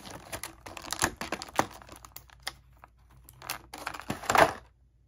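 Clear plastic blister tray crinkling and crackling as it is handled, with sharp irregular clicks; the loudest crackle comes a little after four seconds in, then it stops.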